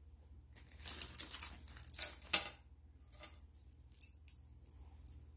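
Costume jewelry jingling and clinking, metal chains and beads knocking together as pieces are handled and sorted. The busiest stretch is in the first half and ends in one sharp clack a little over two seconds in, followed by a few faint clicks.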